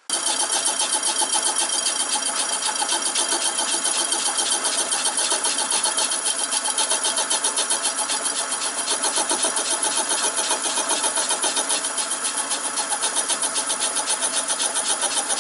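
Slitting saw on a lathe arbor cutting through a soft-soldered bar of bearing brass. It is a steady, high ringing metal cut with a fast, even pulsing.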